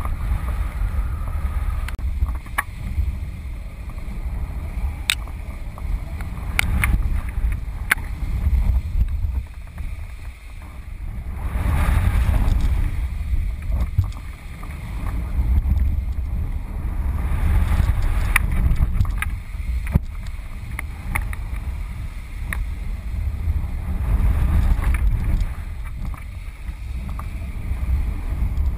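Wind buffeting the microphone of a camera flying on a kite: a low rumble that swells and eases every few seconds, with scattered sharp clicks.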